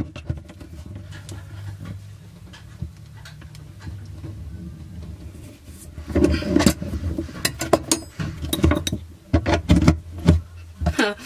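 Brass compression fittings on 15 mm isolation valves being tightened onto plastic pipe: quiet handling over a low steady hum, then from about six seconds in a string of sharp metallic clicks and knocks as water pliers and a spanner grip and turn the nuts.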